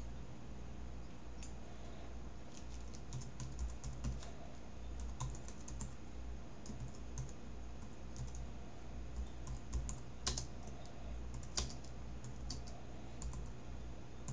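Typing on a computer keyboard: irregular runs of light key clicks with short pauses, a couple of strokes louder about ten and eleven and a half seconds in, over a steady low hum.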